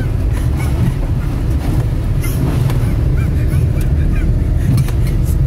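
Car engine and tyre rumble heard from inside the cabin while driving over a rough, muddy dirt track, with a few short knocks from the bumps.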